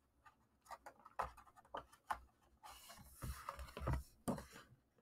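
Pages of a hardcover picture book being handled and turned: faint taps and clicks, then a paper rustle as the page is turned over, about three seconds in.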